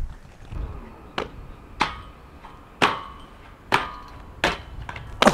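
Six sharp knocks, roughly one a second, several leaving a short ringing tone.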